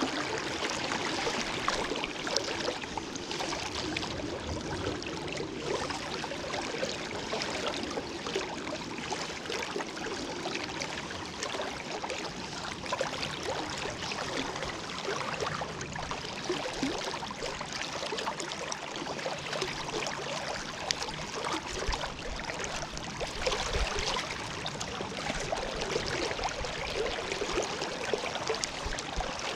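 River current rushing steadily past the wading angler, a constant hiss of moving water.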